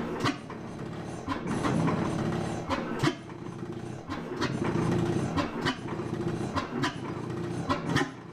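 Samson hit-and-miss gas engine, a vertical twin-cylinder stationary engine, running. Its beat swells and falls about every second or so, with sharp mechanical clicks one or two times a second.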